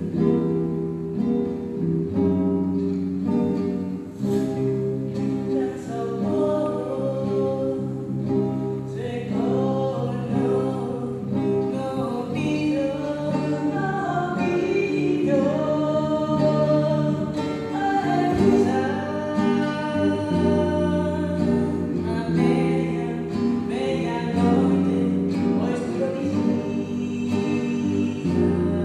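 A woman singing a song, accompanying herself on acoustic guitar, with an electric bass guitar playing low notes underneath.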